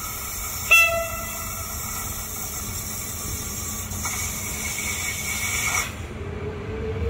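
A 060-EA electric locomotive running light toward the platform: one short horn blast about a second in, then a steady hiss with a thin whine as it approaches, and a low tone rising slightly near the end.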